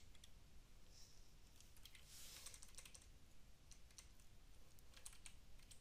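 Faint, scattered keystrokes on a computer keyboard: a few soft clicks with long pauses between, over near silence.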